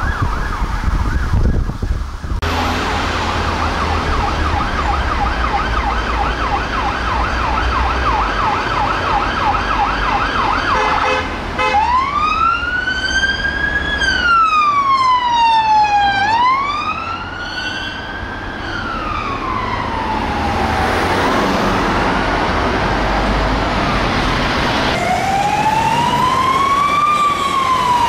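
Unmarked police cars' sirens: a fast yelp that switches to a slow rising-and-falling wail about eleven seconds in, fading out around twenty seconds. Another siren's wail starts near the end, with traffic noise underneath.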